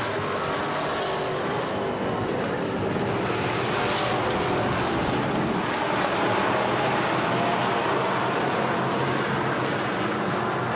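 A pack of factory stock race cars running at racing speed on a dirt oval, their engines blending into one steady, dense sound. It gets a little louder around the middle as cars pass closer.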